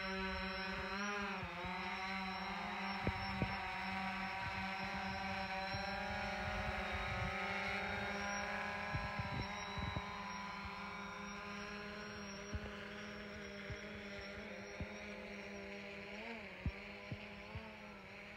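DJI Phantom 4 Pro quadcopter's propellers whining steadily in flight as it hovers and manoeuvres, the whine wavering in pitch about a second in and again near the end. It grows gradually fainter through the second half as the drone moves away.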